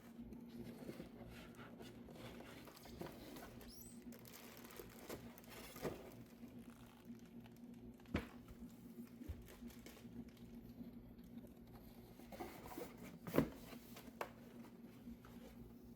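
Faint handling noises of computer parts being worked on: scattered light clicks, taps and rustles, the sharpest about halfway through and the loudest a little over three quarters of the way in, over a steady low hum.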